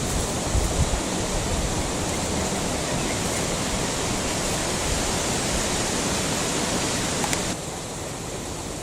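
Steady rushing of flowing water, like a jungle stream or small waterfall, with no clear rhythm or tone. It turns quieter abruptly about seven and a half seconds in.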